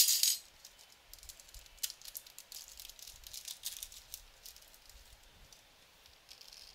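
Small nuts and bolts and a metal chassis bracket being handled and fitted by hand: scattered light clicks and scrapes of metal on metal, with a louder rattle right at the start.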